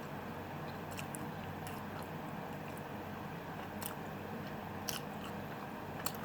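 A person chewing food with the mouth close to the microphone: faint, scattered wet clicks and smacks over a steady low background hum.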